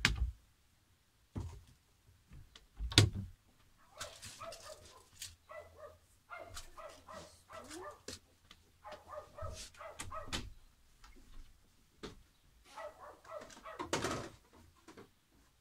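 A dog whining and yipping in long runs of short, quickly repeated high cries. A few knocks of cupboard doors come in the first three seconds, the loudest about three seconds in.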